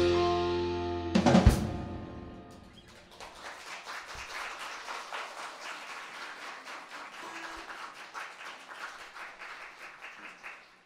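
A live band's final chord ringing out and dying away, with a closing hit on the drum kit and cymbals about a second in. From about three seconds in comes a steady patter of audience clapping, which stops at the end.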